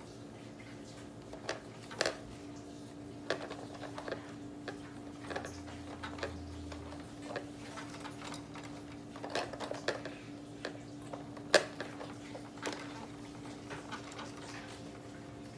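Irregular plastic taps and clacks of a baby slapping and batting at the tray and toys of a baby activity jumper, with a sharper knock about two seconds in and the loudest about eleven and a half seconds in.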